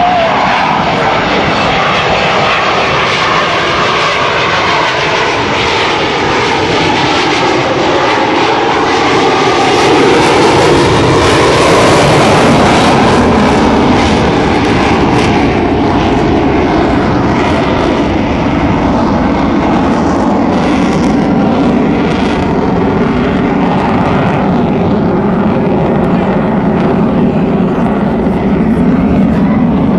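Blue Angels F/A-18 Hornet jets passing, their twin General Electric F404 engines making loud, continuous jet noise. The pitch slides slowly as they go by, and it is loudest about ten to thirteen seconds in.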